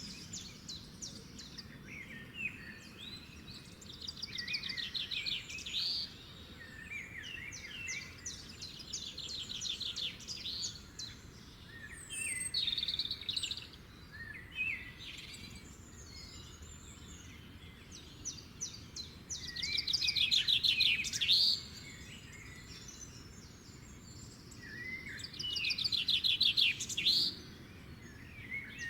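Several songbirds singing: repeated rapid trills and chirping phrases, loudest about two-thirds of the way in and again near the end, over a steady soft outdoor hiss.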